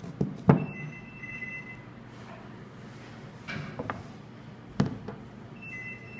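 Steel plunger and barrel of a diesel injection pump element being handled: a few sharp metal clicks and knocks, the loudest about half a second in, more around four and five seconds in.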